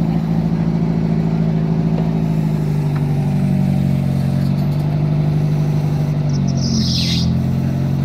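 Jeep Willys engine running steadily while it works a rear-mounted backhoe, its pitch dipping slightly about three seconds in. A brief high chirp that falls in pitch comes about seven seconds in.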